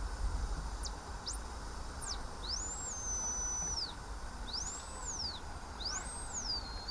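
Yaesu FRG-7 shortwave receiver on sideband giving a high-pitched whistle that glides up and down as it is tuned: a few quick sweeps, then slower rises that hold and fall away, over a steady hiss. This is the beat note that the owner takes as a sign the BFO (beat-frequency oscillator) is working.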